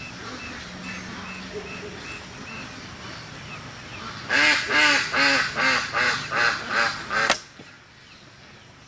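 A duck quacking: a loud run of about eight quacks in quick succession, starting a little past the middle and cutting off abruptly. Faint, evenly spaced bird chirps come before it.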